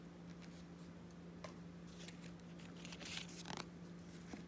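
Faint scratching and rustling of stiff cardboard flash cards being handled and swapped, with a few short scrapes and taps, the loudest about three to three and a half seconds in, over a faint steady low hum.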